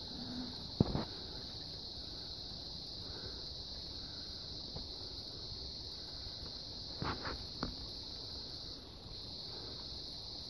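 Insects buzzing in a steady, high, even drone that dips briefly near the end. A sharp knock comes about a second in, and a few softer clicks around seven seconds.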